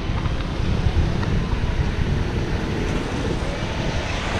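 Wind buffeting the microphone in a heavy, fluttering low rumble, over a steady rushing hiss.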